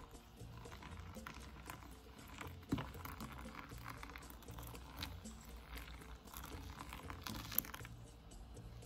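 Hot water poured from a glass kettle onto finely ground coffee in a paper-filtered Clever dripper: a faint pattering splash of water on the grounds, with two sharp clicks, one about three seconds in and one near the end.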